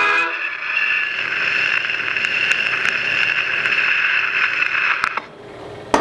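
Monarch 9 horn gramophone: the last sound of the record dies away just after the start, leaving the steel needle running in the groove of the spinning shellac disc. It plays a steady surface hiss with scattered faint crackles through the horn. The hiss cuts off abruptly about five seconds in, and a single sharp click follows near the end.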